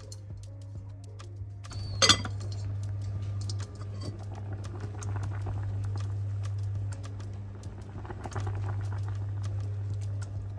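Kitchen handling sounds: a pot and utensils clinking, with a sharper knock about two seconds in, over a steady low electrical hum.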